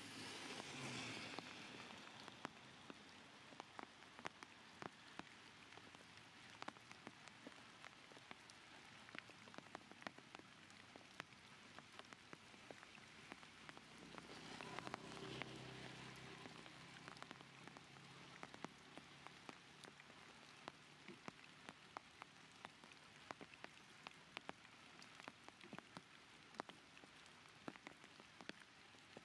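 Scattered water drops ticking irregularly onto surfaces over a faint steady hiss, with a broader swell of noise a little past halfway.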